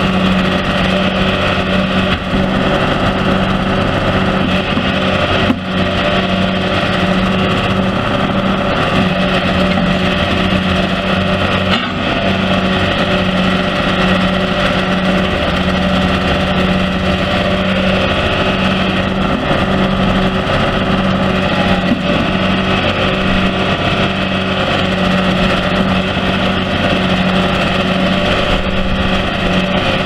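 John Deere 710D backhoe's 5.9-litre six-cylinder turbo diesel running steadily at working speed while the hydraulics swing and dig with the backhoe arm and bucket. There is a strong steady low hum throughout.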